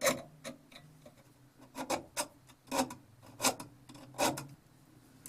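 Short back-and-forth strokes of a hand sharpening tool, a small file or diamond rod, scraping the steel of a vintage auger bit to sharpen its dull cutting edge. About six strokes, roughly one every two-thirds of a second, over a faint steady hum.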